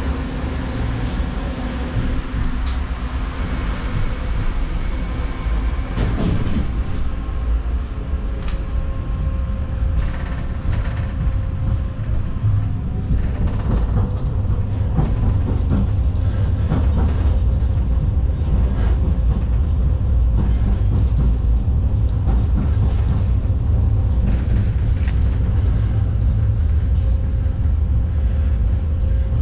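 Interior of a Vityaz-M low-floor tram running along the track: a steady low rumble of wheels and running gear with scattered knocks, growing louder in the second half.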